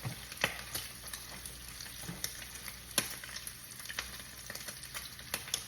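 Bacon frying in a pan: a steady sizzle with irregular sharp pops of spitting grease, one louder pop about three seconds in.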